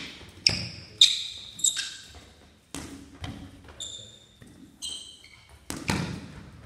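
A ball being caught and thrown back with sharp slaps, about nine in all, while sports shoes squeal in short high chirps on a sports-hall floor during quick footwork.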